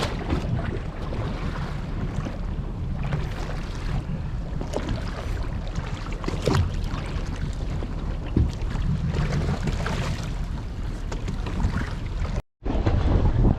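Wind rushing over the microphone and water noise on a small fishing boat at sea, with a few short knocks. The sound cuts out completely for a moment near the end.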